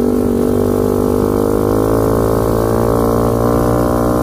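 A 125cc ATV's geared engine running under throttle in third gear, a steady drone that climbs slowly in pitch as the quad picks up speed.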